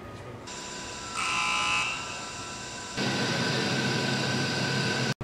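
Ambient noise of a large aircraft assembly hall: a steady machinery hum with faint tones, and a brief high beeping tone about a second in. At about three seconds the sound switches abruptly to a louder, steadier hum.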